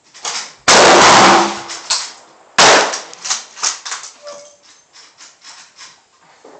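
Two AK-47 rifle shots about two seconds apart, each loud enough to overload the phone's microphone and trailing off in echo, followed by fainter sharp cracks.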